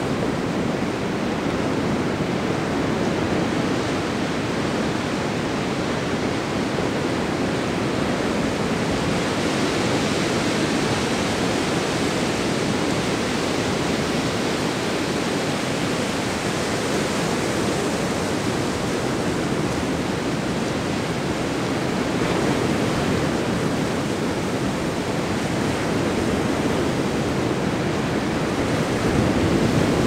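Ocean surf breaking on a beach: a steady, continuous rush of waves, swelling slightly near the end.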